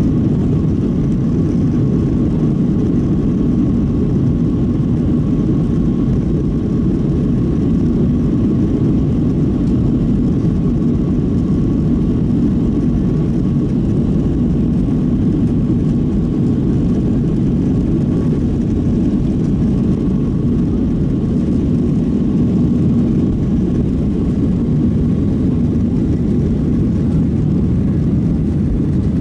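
Boeing 737-700's CFM56-7B jet engines at high power heard from inside the cabin during the takeoff roll: a loud, steady low rumble with a faint steady whine above it, as the airliner lifts off near the end.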